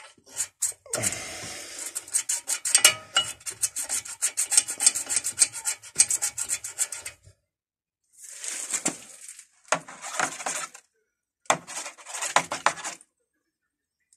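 Rapid back-and-forth rubbing and scraping on a rusty brake caliper guide pin as it is scrubbed clean. A long spell of quick strokes is followed by three shorter bursts with pauses between them.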